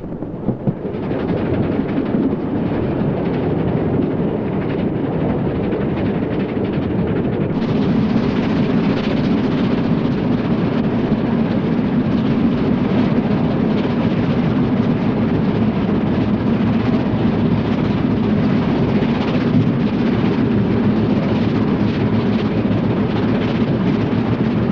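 Steam-hauled special train running at speed, heard from on board close to the locomotive: a steady rumble and rush of wheels on rails with the engine working.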